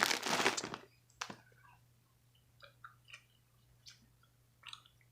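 Person chewing red fish candy with the mouth close to the microphone: faint, irregular small wet clicks and smacks, scattered over a few seconds.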